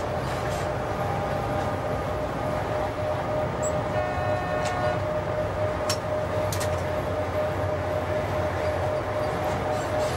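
Cab running noise of a DB Class 103 electric locomotive at speed: a steady rumble with a constant whine. About four seconds in comes a short horn-like tone lasting about a second, then a few sharp clicks.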